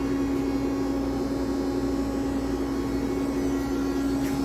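Powered-up Toolmex TUR630 CNC lathe giving a steady, even hum over a low mechanical noise.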